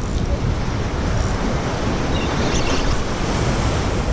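Wind buffeting the microphone over a steady wash of sea waves, with a gusty low rumble and no clear single event.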